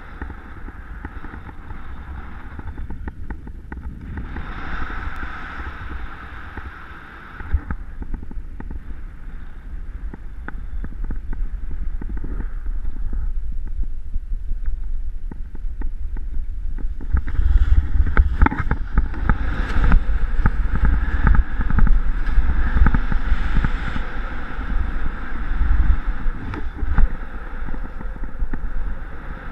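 Wind rumbling and buffeting on the camera's microphone in paraglider flight, with the Nova Mentor 3 XS wing being taken into a full stall. It gets louder and gustier about halfway through, with crackles about 18 seconds in, as the stalled wing falls back.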